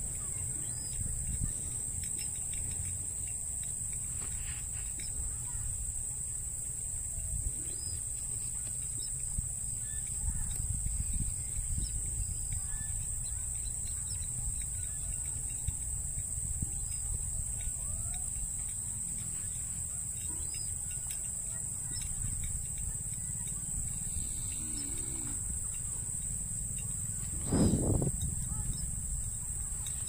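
A steady, high-pitched chorus of insects trilling over a low rumble of wind and handling, with faint scattered bird chirps. A short thump sounds once near the end.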